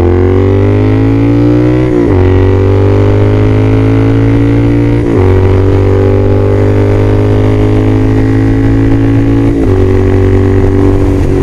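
2015 Triumph Scrambler 900 parallel-twin engine accelerating hard through the gears. The engine note climbs, then drops at each of three upshifts, about two, five and nine and a half seconds in.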